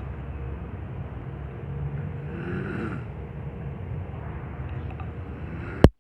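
Snoring of a heavy sleeper, low and steady, with a sharp loud click just before the end.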